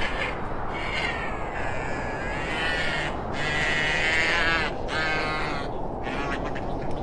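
Tauntaun creature-call sound effect made from a river otter's eating squeals slowed down: a string of about five harsh, wavering calls of uneven length, over a steady low background noise.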